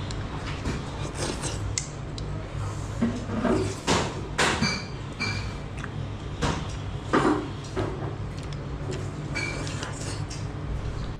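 Eating at the table: noodle pieces slurped and shovelled from a porcelain bowl with chopsticks, loudest in a few bursts in the middle, and the chopsticks clink against the bowl a few times with short rings. A steady low hum lies underneath.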